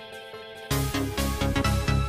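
Electronic music: a soft, sustained synth passage that breaks into a full dance beat with heavy drums and bass about two-thirds of a second in.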